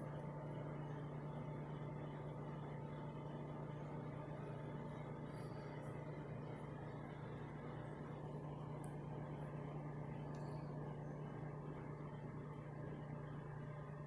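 Microwave oven running on its own with no time set, giving a steady low hum.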